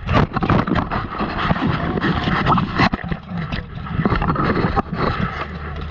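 Heavy rubbing and scraping of a padded fighting coat pressed against a chest-mounted action camera in a grappling clinch, with irregular knocks and clanks of steel armour.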